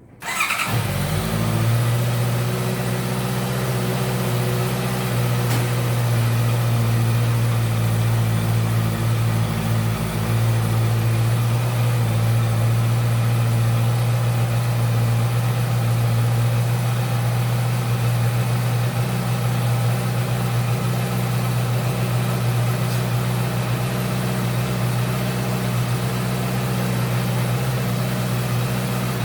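2019 Honda CB650F inline-four engine through its stock exhaust, starting up right at the beginning and then idling steadily.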